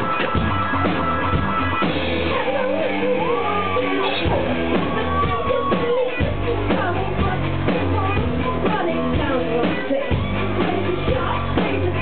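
Live synth-rock band playing loudly over a club PA: a steady drum beat, bass, guitar and keyboards, with a singer's voice coming in about two seconds in. The sound is muffled, with no high treble.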